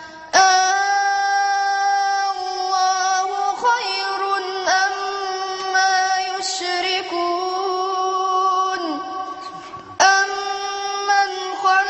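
A boy's solo voice in melodic religious recitation, holding long, ornamented notes. There is a short breath just after the start, and one phrase falls away before a new one begins about ten seconds in.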